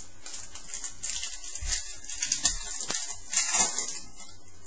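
Crinkling and rustling of a trading-card pack's foil wrapper being handled and opened, with louder crackles about halfway through and again near the end and one sharp click just before.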